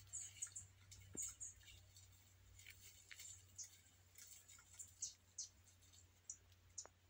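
Near silence: faint, scattered short high-pitched chirps and ticks at irregular intervals over a low steady hum.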